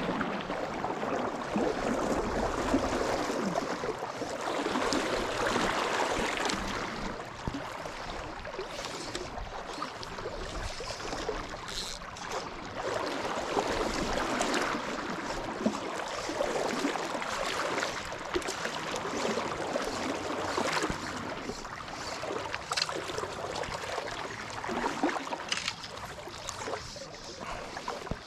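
River water sloshing and swirling around a wading angler, with scattered small splashes and drips.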